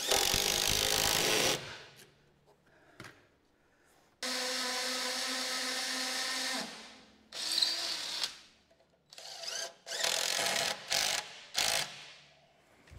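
DeWalt 20V Max cordless impact driver driving Tapcon concrete screws through a treated 2x4 into a concrete column base. It runs in several separate bursts: a loud one at the start, a steadier run of about two seconds midway, and a string of short bursts near the end.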